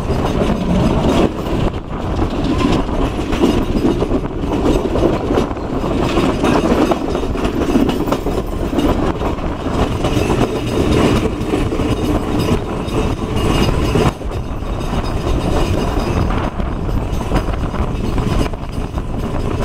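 Passenger train running at speed, heard from an open carriage window: a steady rumble of wheels on the rails with irregular clattering over the track.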